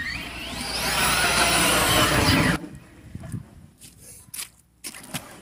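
RC car running fast on concrete close by, its motor whine rising steadily in pitch, then cutting off abruptly about two and a half seconds in. A few footsteps and scuffs follow.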